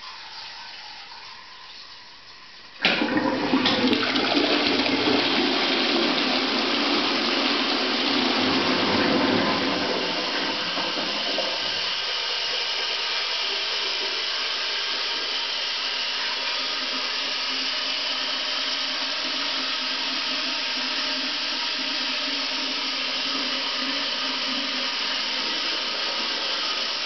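A toilet flushing: about three seconds in, water suddenly rushes into the bowl with a loud swirl and drains for several seconds, flushing the expanded tampon away. The water then keeps running steadily, a little quieter.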